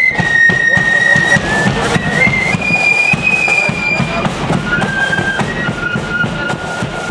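Marching flute band playing a tune in unison on flutes, the melody moving through held high notes, with rapid drumming beneath. The band grows slowly fainter as it marches away.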